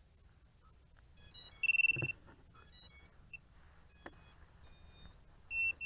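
Razor X125 micro FPV quad powering up on battery connection: its brushless motors and ESCs play a string of short pitched startup tones in changing pitches, with a louder steady high beep about two seconds in and three short high beeps near the end.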